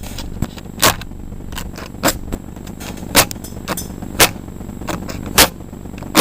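A match struck again and again on the striker of a pack of matches, a short scratch about once a second, six times, without catching light.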